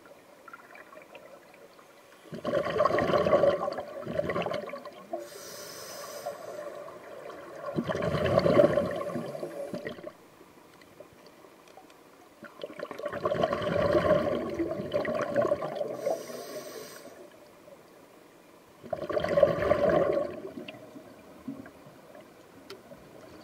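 Scuba diver breathing through a regulator, heard underwater: four exhalations, each a rush of bubbles lasting two to four seconds, coming about every five to six seconds, with a fainter hiss of inhalation between some of them.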